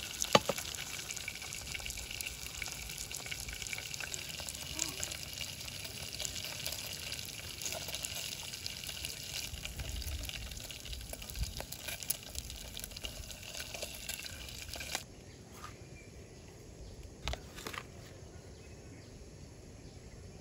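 Salmon fillets sizzling steadily as they fry in a camping pot on a gas stove, with a sharp click just after the start. About three-quarters of the way through the sizzle cuts off abruptly, leaving a quieter background with a couple of sharp clicks.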